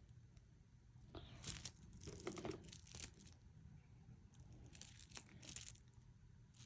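Faint rustling and crinkling from a handbag being handled, in several short bursts.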